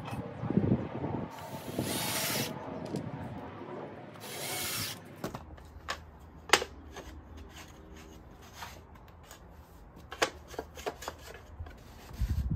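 Cordless drill driving screws into plywood in short runs over the first few seconds, then scattered light clicks and knocks as the drill is set down and plywood pieces are moved about, with a dull thump near the end.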